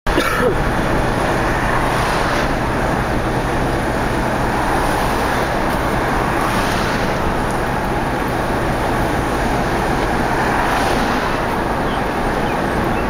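Steady engine and tyre noise of a car driving along a street.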